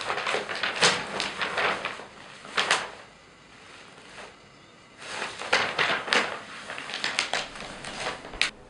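Newspaper pages rustling and crinkling as they are handled and turned, in uneven bursts with a quieter pause of about two seconds in the middle.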